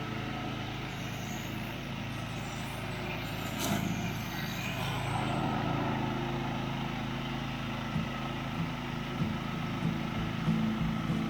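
Engine of a homemade zero-turn ride-on lawn mower running steadily, with a brief rush of noise a few seconds in and a few knocks near the end.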